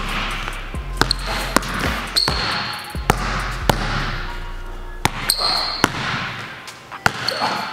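Basketball dribbled hard on a hardwood gym floor, with sharp bounces at an uneven pace that speeds up and slows down. Sneakers squeak briefly on the floor three times.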